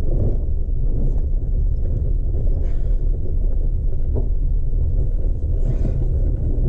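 Steady low rumble inside the cab of a Chevy Colorado ZR2 pickup driving slowly on a dirt trail: engine and tyres on dirt.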